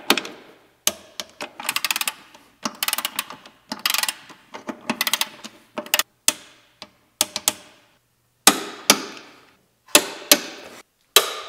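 Hand ratchet wrench clicking in short bursts while bolts under the car are tightened, followed by a few separate sharp clicks in the last few seconds.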